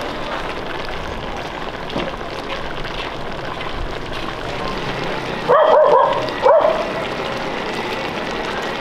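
A dog barking twice, two short loud barks about a second apart a little past the middle, over a steady background hiss.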